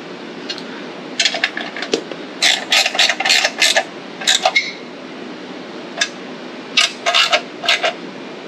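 Ratcheting hand driver clicking in several short runs as it tightens the bolts of a small engine's recoil starter cover.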